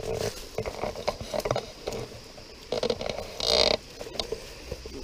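Footsteps on a woodland path, crunching dry leaves and twigs underfoot in irregular scuffs and clicks, with a louder rustle a little past halfway through.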